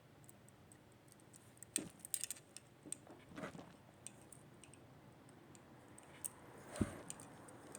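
Faint, scattered clicks and clinks of a stainless steel wristwatch and its bracelet being turned over in the hands, with a few sharper clicks.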